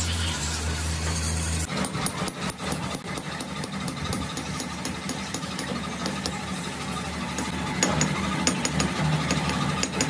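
A steady low machine hum, then, from just under two seconds in, a rapid, uneven run of sharp mechanical knocks.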